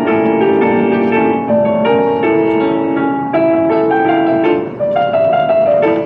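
Background piano music, a steady run of melodic notes.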